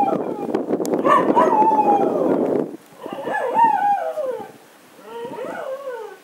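Dogs howling and whining, long falling cries with more than one voice overlapping: pets left shut inside flooded houses. A dense rushing noise runs under the first few seconds and stops abruptly.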